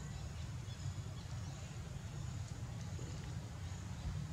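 Steady low outdoor rumble with faint, short high-pitched chirps scattered through it; no clear monkey calls.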